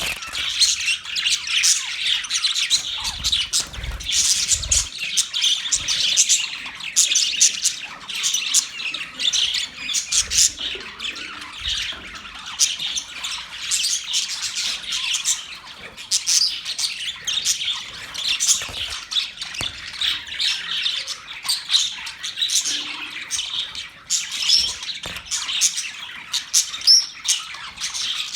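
A group of budgerigars chattering without pause: a dense stream of many short, overlapping chirps and calls.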